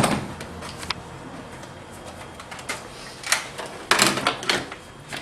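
A few irregular sharp knocks and clicks, as of objects being handled, with a small cluster of them about four seconds in.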